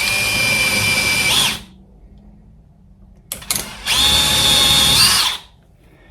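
DeWalt 20V cordless drill/driver running in two bursts of about a second and a half each, the second beginning about four seconds in after a short trigger blip, each winding down briefly as it is released.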